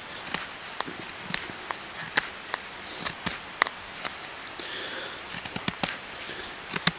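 Small Scandi-ground neck knife whittling a stick of very dry ash: an irregular string of sharp cracks and scrapes, about two a second, as the blade bites into the wood and takes off shavings.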